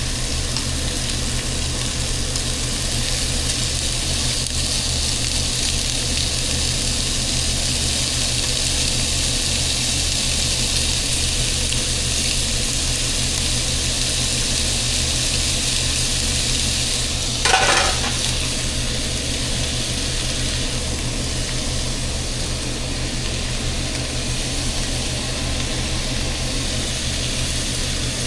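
Food sizzling steadily in a hot pan, with a low hum underneath. About two-thirds of the way in there is one short, brighter clink or scrape, the loudest moment.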